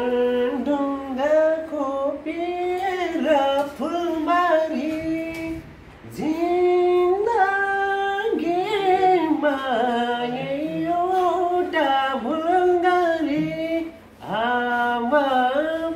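A man singing a Nepali lok dohori folk song solo and unaccompanied, in a high voice with long held notes that bend and slide between pitches. He pauses for breath about six seconds in and again near the end.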